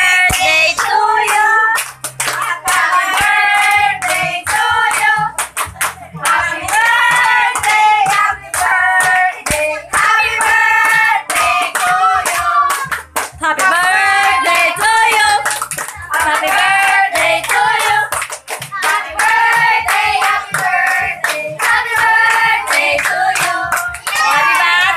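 A group of people singing a birthday song together, clapping along in time.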